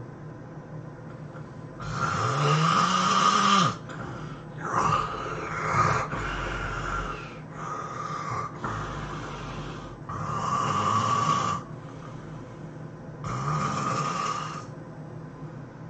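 A person snoring loudly: four heavy snores a few seconds apart, the first with a rising pitch, and quieter breathing between them.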